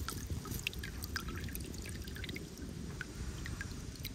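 Water dripping and trickling from a net fish trap as it is lifted out of the sea, scattered drops falling back onto the water surface over a low rumble.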